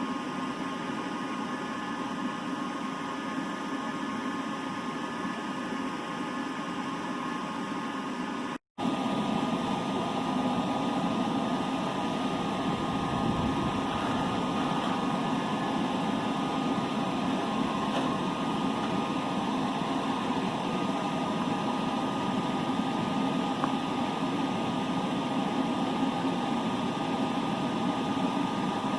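Steady rushing machine noise with a steady hum through it. It cuts out for an instant about nine seconds in and comes back slightly louder.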